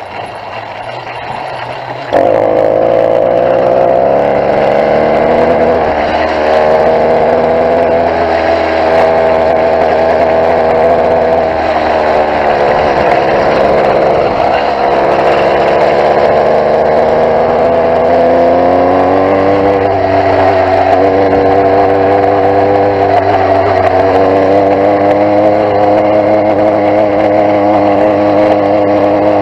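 Small engine of a motorised bicycle running steadily under way, its pitch wavering, dipping in the middle and climbing again later. Quieter for the first two seconds, then suddenly louder. The engine is down on torque from a fouled spark plug, according to the rider.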